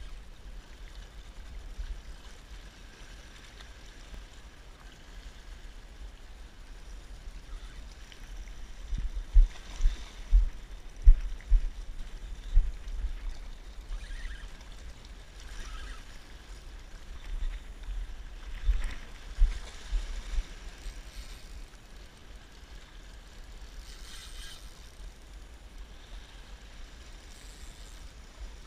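Wind buffeting the microphone in gusts, heaviest in two spells near the middle, over sea water washing and lapping against the rocks.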